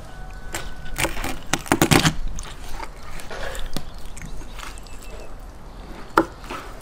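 Large kitchen knife cutting up a raw whole chicken on a wooden cutting board: slicing through skin and joints, with sharp knocks of the blade on the board, a cluster near two seconds in and a single sharp one about six seconds in.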